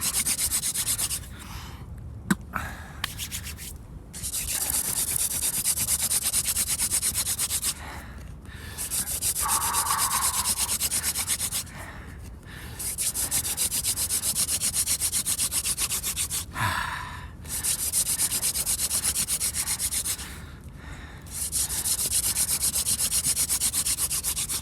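Hand drill fire-making: a wooden spindle spun fast between the palms, rubbing and grinding in the notch of a clematis baseboard to build heat for an ember. It goes as a rapid, steady rasping in runs of a few seconds, broken by short pauses about five times.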